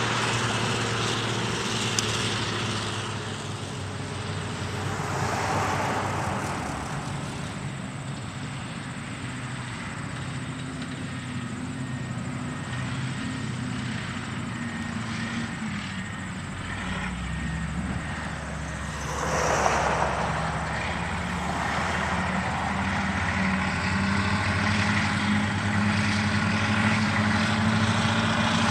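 Diesel engines of Cat 637 twin-engine scrapers working in the cut, a steady low engine note that grows louder over the second half as a scraper comes closer. Two brief swells of rushing noise come about a fifth of the way in and about two-thirds of the way in.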